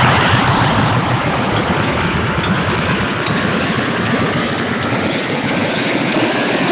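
Anime sound effect: a loud, steady rumbling roar with faint high glints scattered through it.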